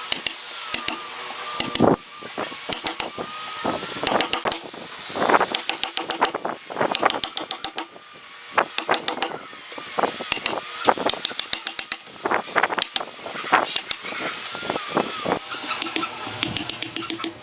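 Repeated sharp clicks and taps coming in quick runs of several strokes, with short pauses between the runs.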